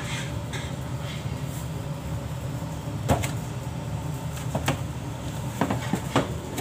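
Steady low background hum in a bakery kitchen, broken by several short, light knocks and clicks in the second half.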